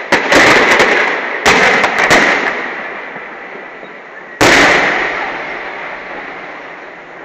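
Aerial firework shells bursting overhead. A quick cluster of sharp bangs comes right at the start, two more follow at about a second and a half and two seconds, and one big bang comes about four and a half seconds in. Each bang trails off in a long fading echo.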